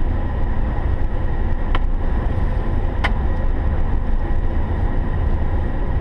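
Car driving on an icy road: a steady low rumble of engine and road noise, with two sharp clicks about a second and a half and three seconds in.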